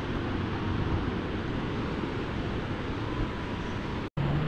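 Steady wind buffeting the microphone over the rush of small waves breaking on a sandy beach. The sound cuts out for an instant near the end.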